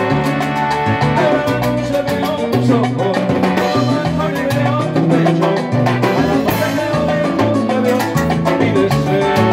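Live salsa band playing, with timbales and other percussion striking over a steady bass line and held melodic parts, amplified through a PA speaker.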